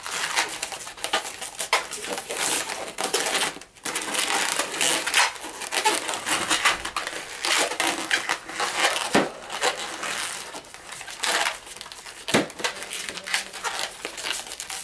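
Latex twisting balloons squeaking and rubbing against each other and against the hands as they are squeezed and twisted into bubbles, with two sharper knocks partway through.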